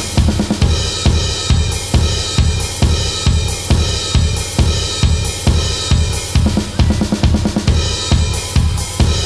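Drum kit playing a steady beat: bass drum and snare hits about twice a second under ringing crash and hi-hat cymbals, with the backing song faint beneath.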